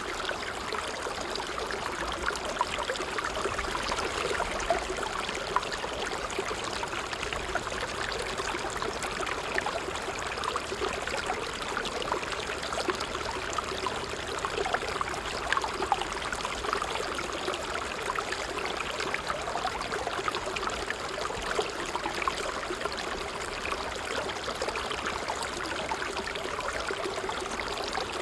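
Water trickling and babbling steadily over stones, with many small irregular splashes.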